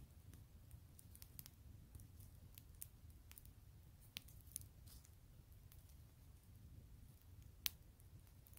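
Wood fire crackling faintly, with scattered small pops and one sharper pop near the end, over a faint low rumble.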